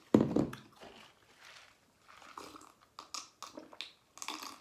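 A person chewing crunchy food close to the microphone: a loud crunch right at the start, then scattered softer crunches and mouth clicks.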